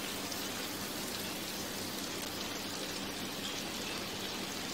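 Floured sea bass fillet frying in butter in a pan, a steady even sizzle.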